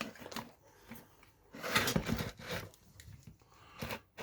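Light clicks and plastic-and-metal rattles of an RC truck's roll cage and pin being handled, in a few short clusters, the busiest about two seconds in.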